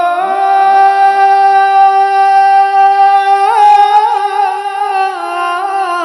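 A solo voice singing an unaccompanied Arabic nasheed, holding one long drawn-out note on "yaa" for about three and a half seconds, then breaking into wavering ornamented turns and stepping down in pitch near the end.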